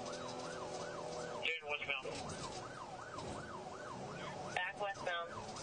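Police car siren in yelp mode: a fast rising-and-falling wail, about three sweeps a second, breaking off briefly about a second and a half in before carrying on.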